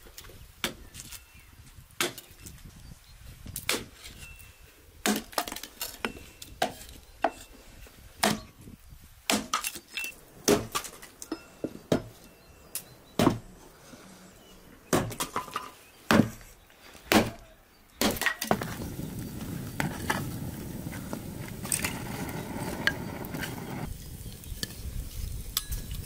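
Hatchet chopping dry sticks into kindling on a wooden chopping block: a long series of sharp, irregular chops and cracks of splitting wood. About two-thirds of the way through the chopping stops and a steady rushing noise takes over for several seconds.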